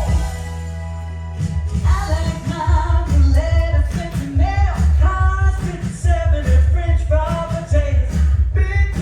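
Live pop-rock music with a singer over a heavy, steady bass beat; a sustained chord opens it before the vocal line comes in.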